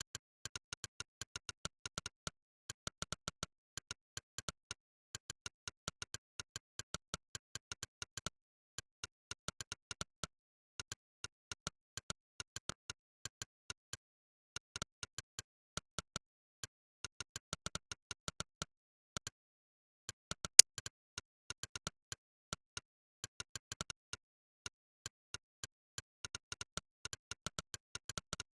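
Monkeytype's 'click' keystroke sound effect, one short click for each key typed, coming in quick irregular runs of several a second with brief pauses between them. One click about two-thirds of the way through is much louder than the rest.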